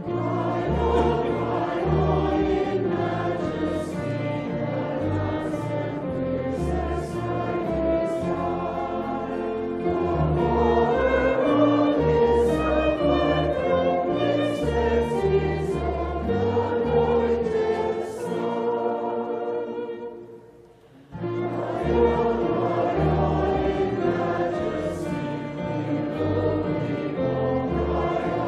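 Choir singing, with a short break about two-thirds of the way through before the singing resumes.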